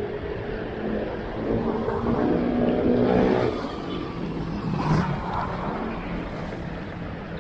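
Street traffic: motor vehicle engines running and passing over steady road noise. The engine hum swells a couple of seconds in and again around five seconds.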